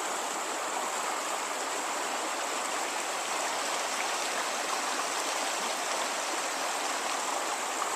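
River water running steadily, a constant rushing hiss.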